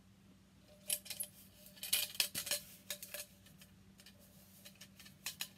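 Small tin pail being handled, its wire handle clinking and rattling against the metal in short bursts of sharp clicks: one cluster about a second in, a busier run around two seconds in, and a few more clicks near the end.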